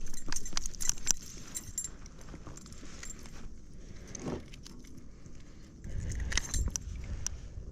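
Fishing tackle being handled: a quick run of light metallic clinks and rattles in the first second or so, then scattered ticks and low bumping and rustling.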